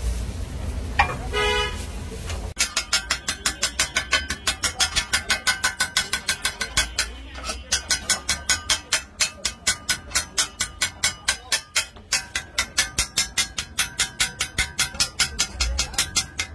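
Steel spatula chopping filling on a flat iron griddle: rapid, even metallic clanging at about four strikes a second, starting about two and a half seconds in. Before that, a faint sizzle and a brief horn toot about a second in.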